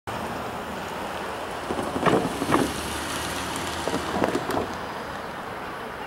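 Steady outdoor noise like rain or wind on the microphone, with two pairs of brief, louder rushing bursts about two seconds in and again about four seconds in.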